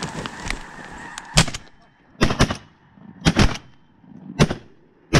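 Several shotguns firing in a ragged volley: about six shots starting a little over a second in, some in quick pairs. A flock of geese calls faintly in the first second or so.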